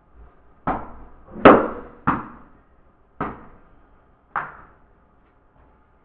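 Five sharp knocks at uneven intervals, each dying away with a short ringing tail; the second is the loudest.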